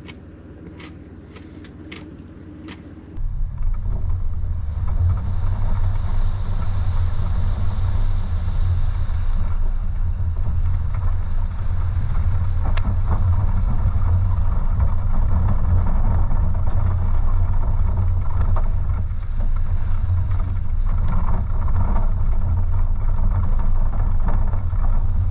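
Toyota 4Runner driving up a muddy, snowy dirt trail: quieter cab noise with a few clicks, then about three seconds in a loud, steady low rumble of engine, tyres and wind buffeting, heard from a camera mounted on the hood.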